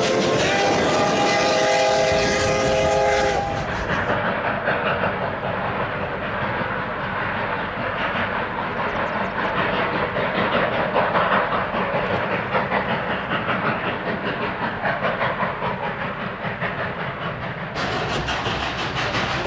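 Narrow-gauge steam locomotive whistle sounding one chord-like blast of about three seconds, over the running train. After it the train's rhythmic clatter carries on at a steady pace.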